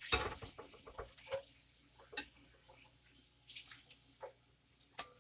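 Hot grease sizzling and crackling in a pan as small wheel-shaped snack pellets fry and puff up, with a loud burst right at the start, then scattered pops and clicks of metal tongs and a short spell of hiss about three and a half seconds in.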